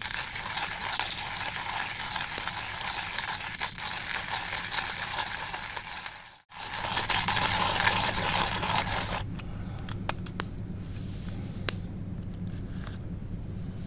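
Hand coffee grinder being cranked, its burrs crunching beans in a steady grinding rasp. There is a brief break about six seconds in, then the grinding resumes and stops about nine seconds in, followed by a few light clicks as the grinder is handled.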